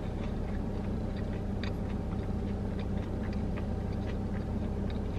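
Steady low hum inside a car cabin, with faint, scattered clicks of someone chewing fried chicken with her mouth closed.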